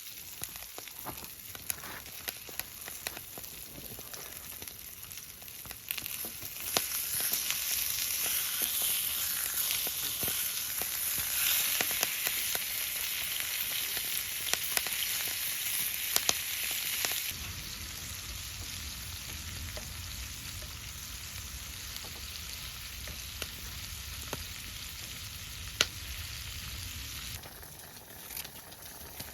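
Food sizzling and frying in a hot pan, with scattered pops and crackles; the sizzle grows louder about six seconds in and eases off a little after about seventeen seconds, when a low rumble comes in underneath.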